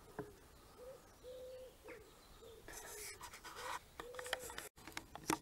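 A pigeon cooing: a run of low, steady-pitched coos, some short and some drawn out. Rustling and scraping about three seconds in, and a sharp click just before the end.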